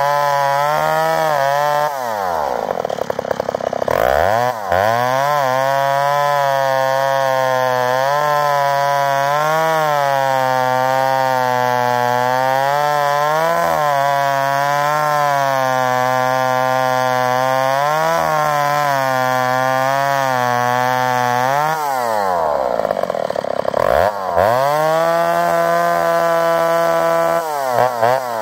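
McCulloch Super 55 two-stroke chainsaw, an 83 cc bored-over and ported engine, running at high revs while bucking grand fir, its pitch wavering with the load. Twice, about two seconds in and again near twenty-two seconds, the revs fall away and then climb back up.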